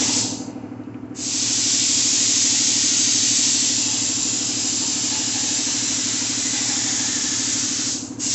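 Gravity-feed air spray gun hissing as it sprays paint onto a boat hull; the air cuts off briefly about a second in, then runs steadily until a short break near the end. A steady low hum runs underneath.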